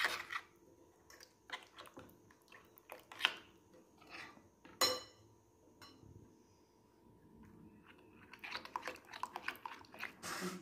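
Metal spoon stirring a thick, wet yogurt marinade in a glass bowl: soft squelching with scattered clinks of the spoon on the glass, quieter in the middle and busier near the end.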